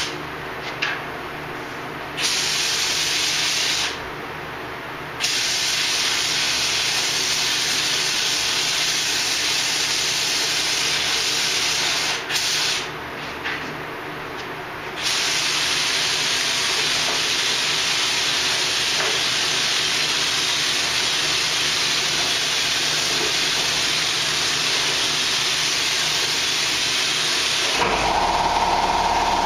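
Compressed-air paint spray gun hissing in several long bursts of several seconds each, with short pauses as the trigger is released. Near the end a motor starts up with a steady drone.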